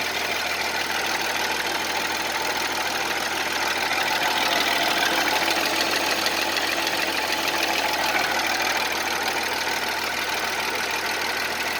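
Audi 3.0 TFSI supercharged V6 (CAJA) running steadily, with a knock coming from the engine, a little louder in the middle.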